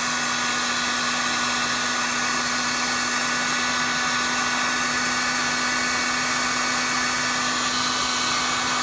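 Electric heat gun blowing steadily, its fan and motor running with a constant hum under a loud rushing of hot air, heating a solder-seal heat-shrink connector.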